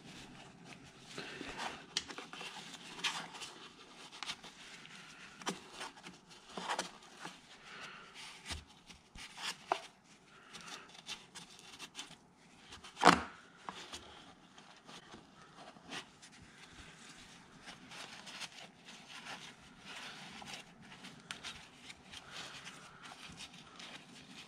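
Paper towel rubbing and crinkling as a gloved hand wipes out the lifter valley of a Chevrolet L98 350 V8 block, with scattered light clicks and knocks against the metal. One much louder knock comes about 13 seconds in.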